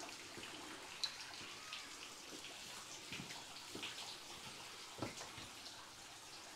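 Faint trickle and dripping of spring water running out of a rock-walled spring, with a sharp click about a second in and a soft thump about five seconds in.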